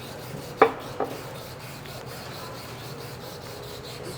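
Two sharp clicks close together near the start, then steady rhythmic rubbing on the pump shaft as seal grease is worked on by hand.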